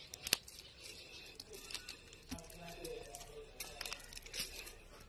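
Rotten wood being pulled and crumbled apart by hand: faint crackling and tearing of soft fibres, with scattered sharp crunches.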